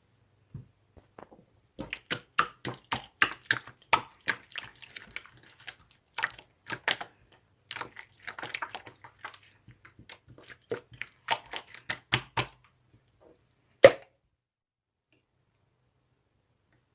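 Irregular run of sharp clicks and taps, several a second, with a faint low hum underneath, ending in one louder click about fourteen seconds in.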